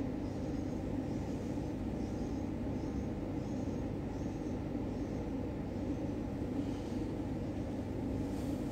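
Steady low rumbling background noise, a constant room hum with no distinct events.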